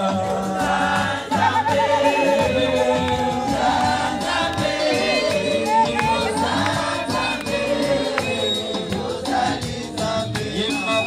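A crowd of women singing a song together over music, with hands clapping.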